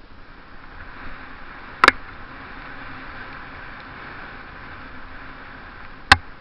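Mountain bike riding down a wet trail: a steady rush of tyre and wind noise, broken by two sharp knocks about four seconds apart.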